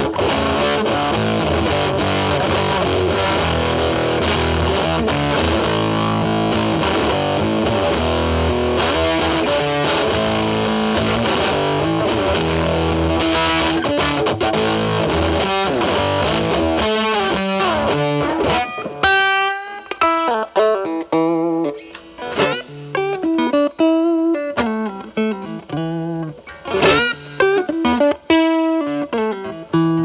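Electric guitar, a Telecaster through a ZVEX Fuzz Factory set for a high-gain Fuzz Face-style fuzz into a Marshall Valvestate amp, playing a thick, sustained fuzz wall. About eighteen seconds in it clears into separate, cleaner picked notes with gaps between them as the fuzz cleans up.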